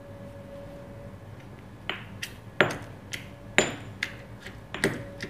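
Stone pestle pounding boiled garlic and green chillies in a stone mortar: sharp stone-on-stone knocks about twice a second, some with a brief ringing, starting about two seconds in.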